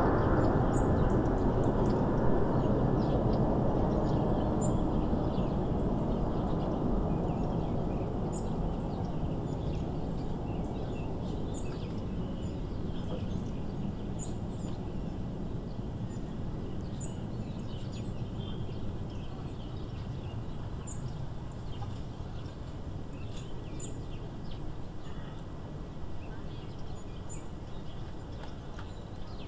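Boeing 747 jet engine noise fading steadily as the four-engined airliner climbs away after takeoff. A bird gives a short high chirp every three to four seconds.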